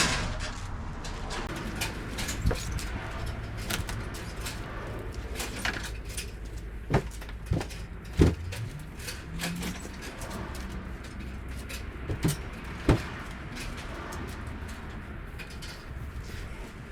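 Irregular clicks and knocks from handling a car's headliner board and fabric, a few sharper knocks among them, over a steady low hum.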